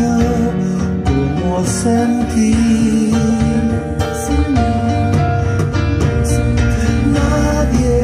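A guitar song with singing, played loud on a vintage hi-fi system (Accuphase C-200 preamp and P-300 power amplifier) through its loudspeakers.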